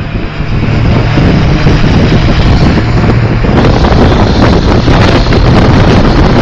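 Heavy wind buffeting on the microphone of a car moving at speed, over road and traffic engine noise. The wind gets harsher a little over halfway through.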